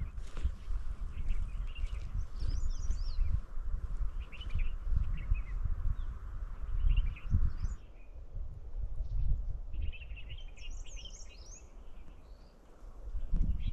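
Wild birds chirping and calling on and off over wind buffeting the microphone in gusts. A steady high hiss underneath cuts off suddenly about eight seconds in.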